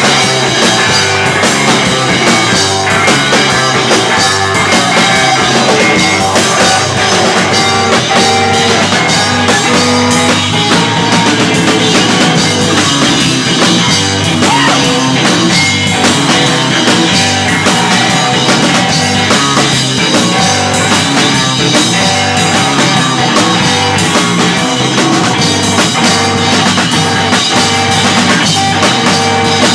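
Rock band playing loud and live: a drum kit with steady drum and cymbal hits under electric guitar played through an amplifier.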